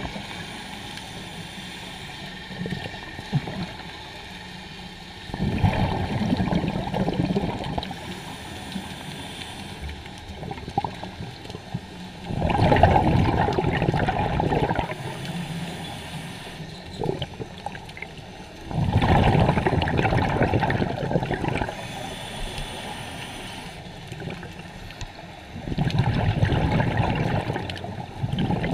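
Underwater scuba breathing: exhaled bubbles from a diver's regulator bubble past the camera in four bursts of two to three seconds, about every six to seven seconds, over a steady low underwater hiss.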